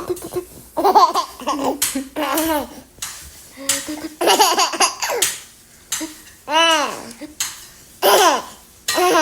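Baby laughing in a series of short bursts, with high squeals that rise and fall in pitch and short pauses between them.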